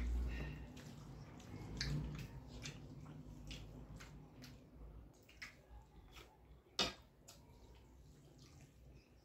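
Eating rice and curry by hand: soft wet mouth sounds and fingers squishing rice, heard as a string of small clicks and smacks, with one sharper click about seven seconds in.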